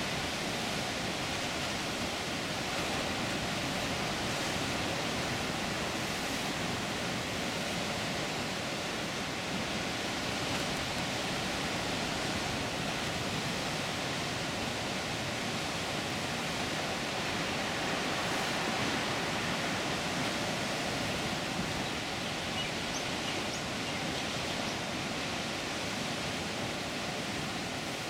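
Ocean surf breaking against jagged rocks: a steady rush of churning water and spray.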